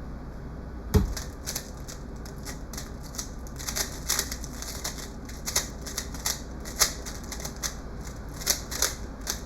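A thump about a second in, then a speedcube being turned fast: a rapid, irregular run of plastic clicks as its layers snap round during a solve.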